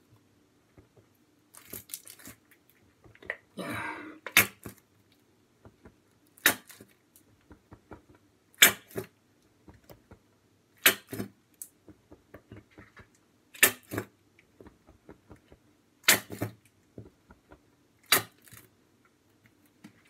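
A nearly empty mayonnaise bottle being squeezed and smacked over a bowl of pasta to get the last of it out. It gives sharp double slaps about every two seconds, and a brief sputtering squirt about four seconds in.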